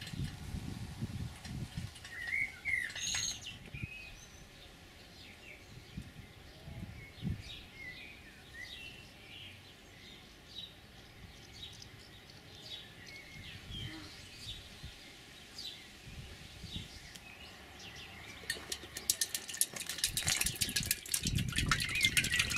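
Small birds chirping intermittently, with a few dull low thuds in the first couple of seconds. About twenty seconds in, vegetable oil begins pouring from a plastic bottle into a tall square quench tank, with a louder trickling and splashing.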